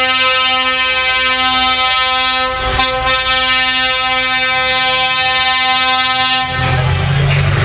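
Truck air horn blowing one long, steady note that cuts off about six and a half seconds in. A lower-pitched horn starts right after, near the end.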